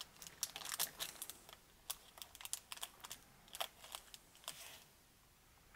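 Faint crinkling and crackling of a foil candy-bar wrapper, with small ticks, as a chocolate nougat bar is cut with a folding knife.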